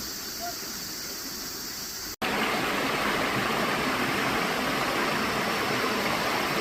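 Mountain valley stream rushing, a steady wash of water. About two seconds in the sound drops out for an instant and comes back louder.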